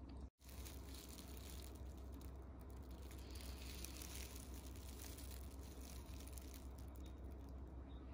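Faint crinkling of a thin plastic bag as a wrapped melon pan is handled, over a low steady hum.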